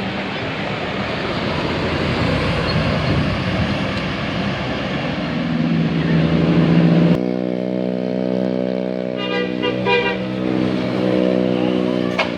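A tour bus's 'telolet basuri' musical horn plays a tune of held notes that step from pitch to pitch, at first over a noisy rumble. About seven seconds in the sound switches abruptly to clearer horn notes.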